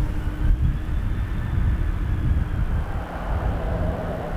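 Airbus A330-343 airliner rolling out on the runway just after touchdown: a steady low rumble with a faint high engine whine that drifts slowly in pitch, from its Rolls-Royce Trent 700 engines.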